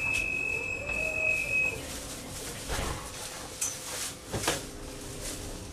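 A tram's steady high electronic beep, ending about two seconds in, followed by a few knocks and clunks from the car and a low steady hum as it runs.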